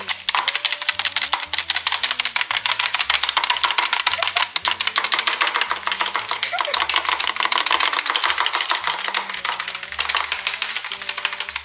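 Egg yolks being beaten by hand in a bowl: a fast, steady clicking of the utensil against the bowl, the yolks being beaten until they lighten in colour. Background music with a bass line plays underneath.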